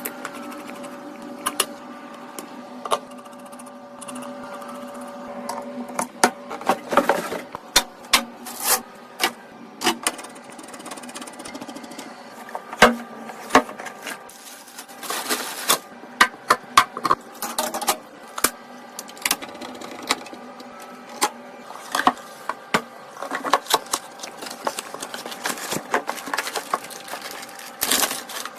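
Irregular clicks, taps and knocks of desktop PC parts being handled and fitted together, over a steady hum that fades after the first several seconds.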